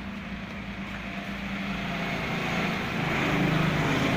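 Engine noise of a passing motor vehicle, a steady hum that grows louder over the second half.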